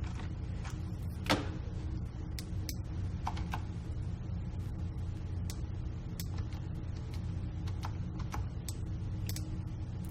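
Scattered clicks and taps of a computer mouse and keyboard, one sharper click about a second in, over a steady low electrical hum.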